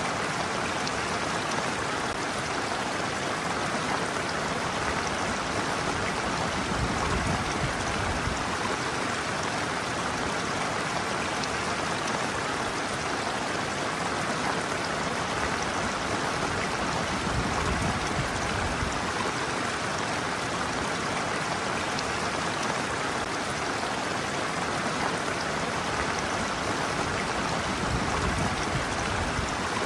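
Shallow stream water rushing steadily down a sloping bed, a continuous even splashing, with a few brief low swells along the way.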